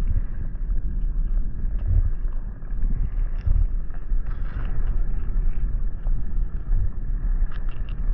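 Wind buffeting the microphone, a steady low rumble that swells and dips, with scattered faint clicks from handling a baitfish and hook close to the microphone.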